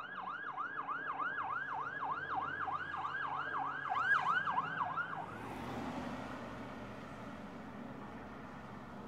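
Emergency vehicle siren in yelp mode, rising and falling about three times a second, cutting off suddenly about five seconds in. Vehicle noise follows.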